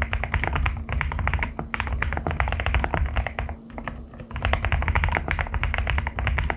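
Rapid typing on a Qwertykeys QK75 custom mechanical keyboard with Haimu Crystal Blossom switches: a dense run of deep keystrokes that pauses briefly a little past the middle, then picks up again.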